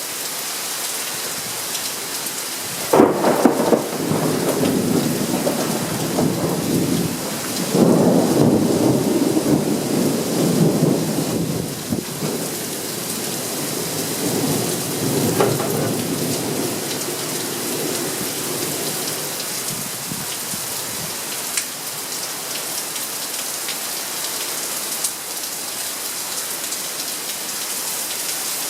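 Steady rain from a summer thunderstorm, with a sharp thunderclap about three seconds in. It rolls into a long low rumble that swells again several times before fading out around two-thirds of the way through.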